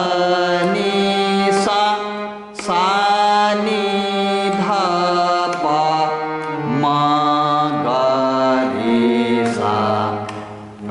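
Harmonium playing a sargam scale note by note, about one note a second, with a man's voice singing the notes along with it. Tivra (sharp) Ma is used in place of shuddh Ma. The sound fades out near the end.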